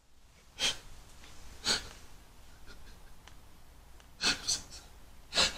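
A man's noisy breaths, five short sharp ones with faint breathing between.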